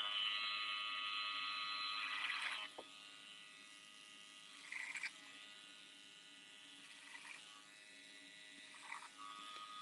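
Electric hair clipper running with a steady buzz as it cuts hair. It is louder for the first two and a half seconds or so, then fainter for the rest.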